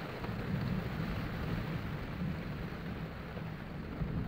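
Distant thunder from a night thunderstorm, rolling low and continuously and swelling now and then, over a steady hiss.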